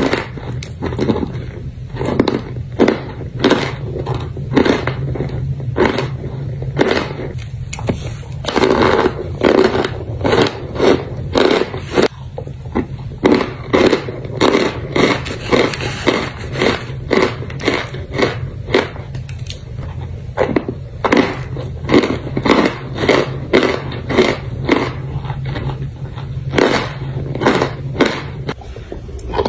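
Dry chunks of starch being bitten and chewed close to the microphone: crisp crunches, roughly one or two a second, over a steady low hum.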